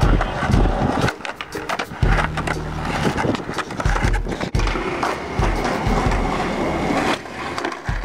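Skateboard wheels rolling on concrete, with a string of sharp clacks and knocks from the board.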